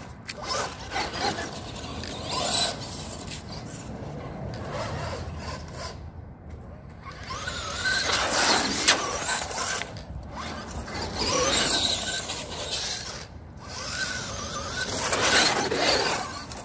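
Brushed-motor Traxxas Slash 2WD RC truck on a 3S LiPo driving hard on pavement. Its electric motor and drivetrain whine, rising and falling in pitch with the throttle in several surges, over the noise of the tyres on the asphalt.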